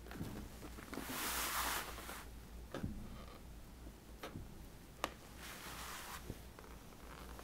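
Faint handling sounds of a paint-coated balloon being dabbed onto and lifted off wet acrylic paint on a canvas: two soft hissing rushes and a few light clicks over a low hum.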